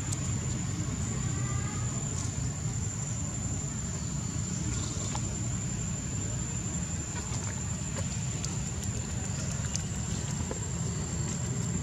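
Outdoor ambience: a steady low rumble under a continuous thin, high-pitched insect whine, with a few faint scattered ticks.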